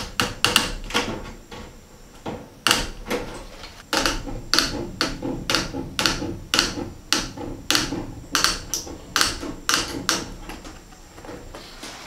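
Hand staple gun firing staples one after another, about two a second, fastening wire hardware cloth to a wooden box; each shot is a sharp snap, with a short pause about two seconds in.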